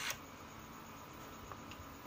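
Music cuts off abruptly right at the start, leaving a faint steady hiss with two faint small ticks about a second and a half in, as the small amplifier circuit board is handled.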